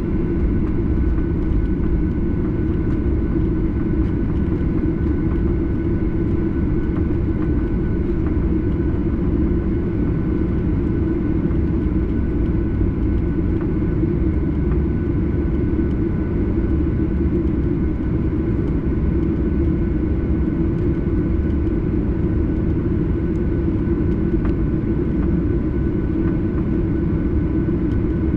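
Boeing 737-800 heard from inside the cabin: a steady, dense rumble of its CFM56 jet engines and airflow, with a faint steady whine above it.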